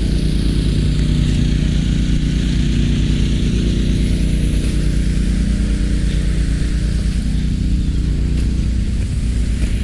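Large diesel engine running steadily at a constant speed, with an even hiss over it.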